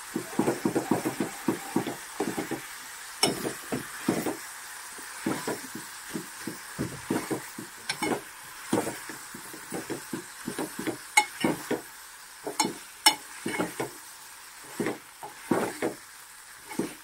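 Steel spoon stirring sliced onions frying in oil in an aluminium pot: irregular scrapes and clinks of the spoon against the pot, over a faint steady sizzle.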